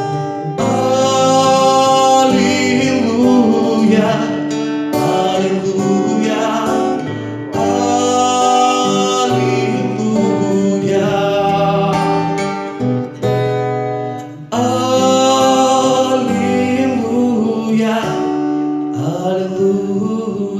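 Worship song: a voice singing long, drawn-out hallelujahs over a strummed acoustic guitar, in about three long phrases.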